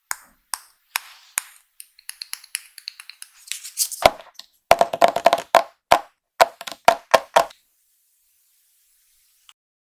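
Small makeup items and their packaging being handled, giving sharp clicks and taps, a short rustle, then a quick run of louder clicks that stops suddenly about three quarters of the way in.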